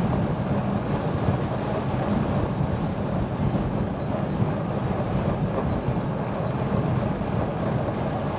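Steady rush of wind buffeting the microphone, mixed with the rolling noise of bicycle tyres on the road while riding.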